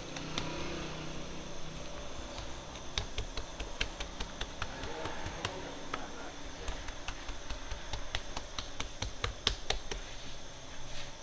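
Fingertips slapping and pressing into wet sangak dough on a wooden bread peel: a run of irregular sharp taps, several a second, as the dough is stretched and dimpled before going into the oven.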